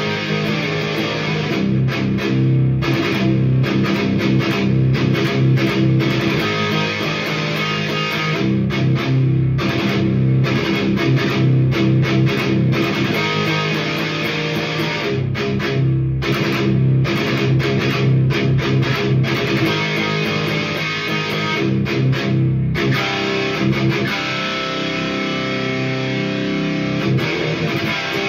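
Electric guitar tuned to drop C played through a Hiwatt Hi-5, a 5-watt all-tube amp, into 1x12 cabinets with Celestion Vintage 30 speakers: high-gain metal riffing with many short, tight stops between phrases. The playing cuts off abruptly at the very end.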